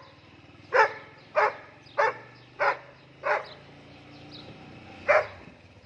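Young German Shepherd barking as it runs: five short barks about 0.6 s apart, then one more after a pause, over a steady low vehicle engine hum.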